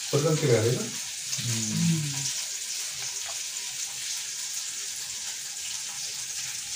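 A voice speaks a few words in the first two seconds, then a steady hiss carries on to the end.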